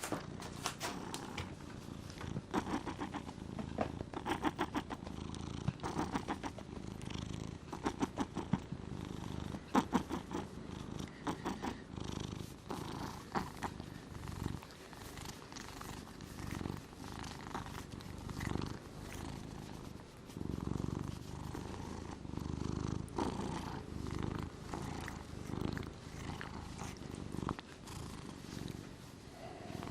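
Siberian cat snoring in its sleep: rattling breaths in and out, about one every two seconds.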